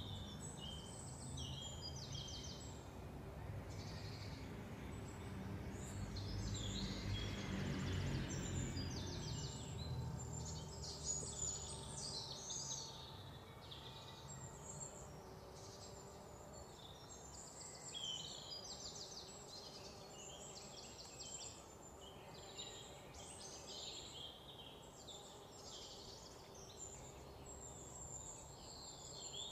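Small birds chirping and giving fast trills again and again, over a low background rumble that fades after about twelve seconds.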